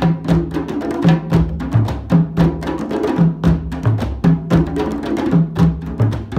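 Background music with a steady, quick percussion beat of sharp clicks over a bass line moving between a few notes.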